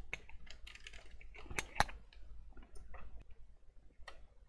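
Scattered clicks and light rustling of a display cable's plug being handled and pushed into a desktop PC's rear video port, with one sharp click a little under two seconds in.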